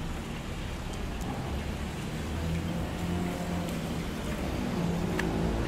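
Steady traffic noise with a motor vehicle engine running close by, under a few faint sharp clicks as a cleaver cuts through the crisp skin of a whole roast pig; the clearest click comes about five seconds in.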